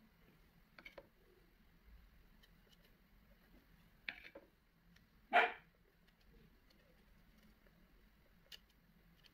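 A few faint taps and scrapes of a palette knife on paper and a plastic paint palette, with one short, loud animal call about five seconds in.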